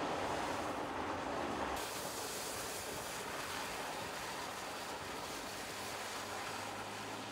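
Steady road noise of a car driving on a wet road: tyre rush and wind, with no engine standing out. About two seconds in the sound changes abruptly to a brighter, hissier tyre-spray noise, and a faint low hum comes in near the end.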